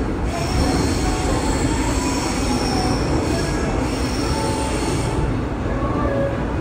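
Seoul Subway Line 5 train heard from inside the passenger car, running with a steady low rumble and a high-pitched wheel squeal from the rails that stops about five seconds in.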